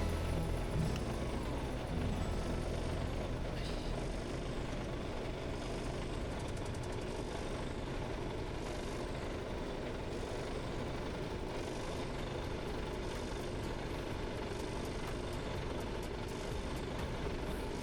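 Diesel engine of a Mitsubishi Fuso Super Great truck (6R20) running steadily at idle.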